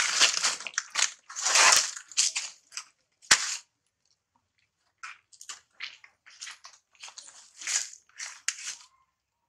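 Dry leaves crunching and crackling in irregular bursts, with one sharp click about three seconds in; after a short pause the crackling goes on more lightly.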